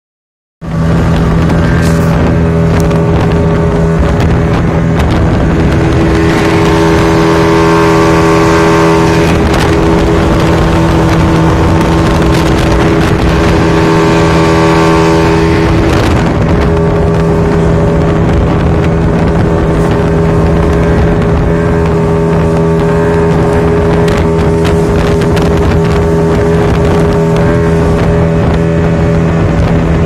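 Speedboat engine running at speed, a loud steady drone whose note shifts for a few seconds at a time in the first half, with wind rushing past and scattered knocks.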